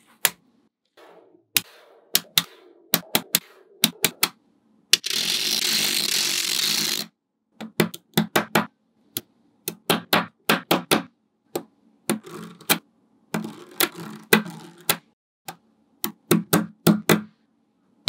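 Small magnetic balls clicking sharply into place as blocks and panels of them are pressed together, in irregular single clicks and quick runs of clicks. About five seconds in, a steady rattling rush lasts some two seconds.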